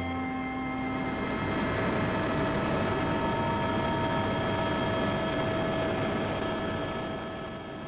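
Helicopter cabin noise in flight: a steady rushing drone with a few thin steady whining tones. Background music fades out about a second in, and the noise drops somewhat in level near the end.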